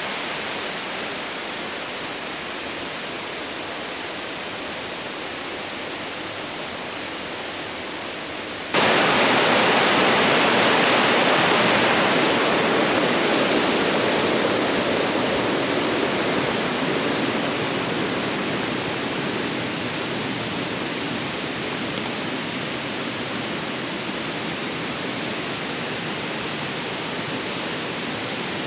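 Steady rushing of flowing water, like a mountain stream. It jumps abruptly louder about nine seconds in, then eases off slightly.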